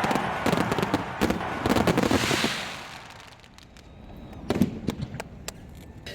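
Fireworks going off: a rapid string of crackling bangs with a hiss, dying down about three seconds in, then a few scattered pops.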